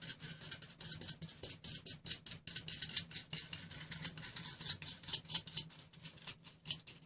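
Steel nut being spun by hand along an M8 threaded rod, a fast continuous metallic rattle of the nut on the threads.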